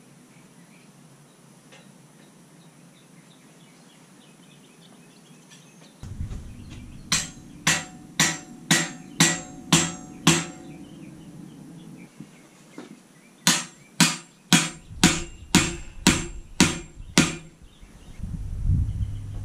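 Hammer striking metal in two runs of steady blows, about two a second: seven, then after a pause about nine, each with a bright metallic ring. It is knocking in the spikes that hold the chainsaw mill's guide rails to the log.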